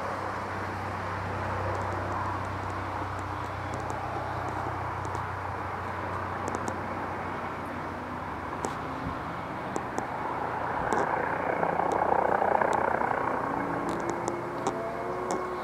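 Police helicopter circling overhead, its rotor and engine a steady, distant drone that grows louder about eleven seconds in, then eases.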